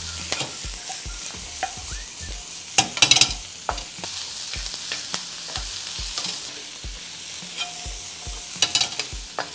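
Ham, onion and broccolini sizzling in a hot seasoned wok, with a spatula scraping and clattering against the wok as they are stir-fried. The ham fat is rendering out. The loudest scrapes come about three seconds in and again near the end.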